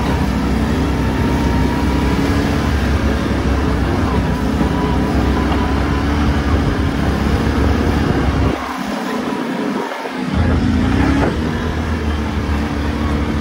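Off-road buggy engine running as it drives along a dirt trail, a steady hum over a heavy low rumble. The low rumble drops away for about two seconds around nine seconds in, then comes back.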